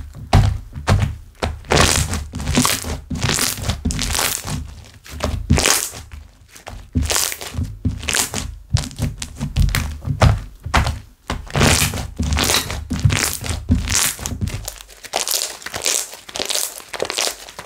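Slime being squished and pressed by hand, with repeated wet crackling and popping of trapped air bubbles, about two pops a second. Low thuds sound under them as the slime is pressed down, and these stop near the end.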